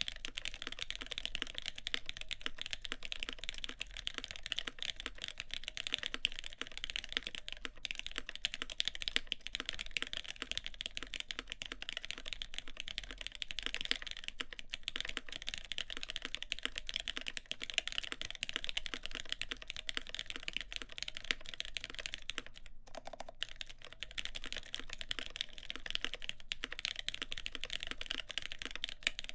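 Steady, fast typing on a CAKE60 mechanical keyboard with an aluminium plate, GMK keycaps and linear Gateron X switches lubed with Krytox 205g0. The keystrokes come as a dense run of clicks, with a brief pause about three-quarters of the way through.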